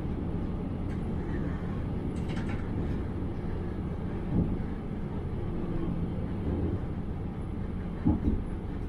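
Train running along the track, heard from the driver's cab: a steady low rumble, with a knock about four seconds in and two more close together near the end.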